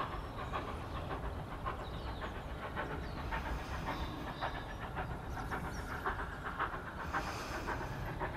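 Steam locomotive working up the line, its exhaust beats coming at a steady rhythm, with a burst of steam hiss near the end.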